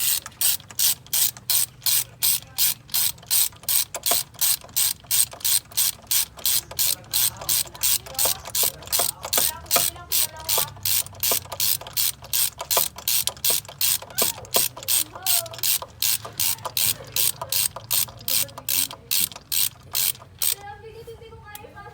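Steady, sharp mechanical clicking, about three clicks a second, that stops near the end.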